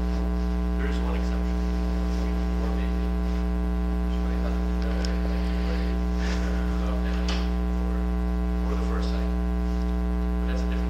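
Steady electrical mains hum in the recording, a constant low drone with a ladder of overtones. A faint, distant voice comes and goes over it.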